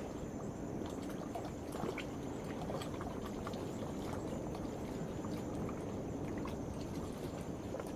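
Waves washing against a rocky shore, a steady low wash of water, with a thin continuous high trill from night insects and scattered small clicks and splashes.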